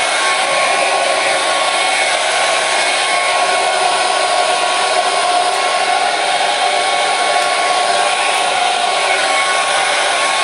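Hair dryer running steadily: an even, unbroken hiss of blown air with a faint steady motor whine.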